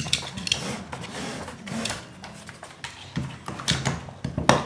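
Wooden dog puzzle toy clattering on wooden floorboards as a dog noses and paws at it for treats: irregular clicks and knocks, with one louder knock near the end.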